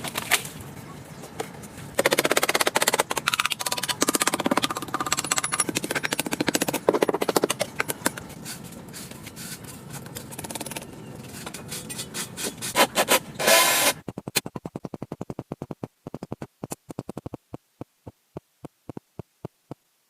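Rapid clicking and rattling that thins out into separate clicks, coming further and further apart until they stop near the end.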